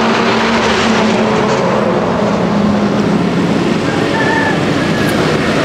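Highway traffic noise: a heavy vehicle's engine running close by, a loud steady rumble with a low hum.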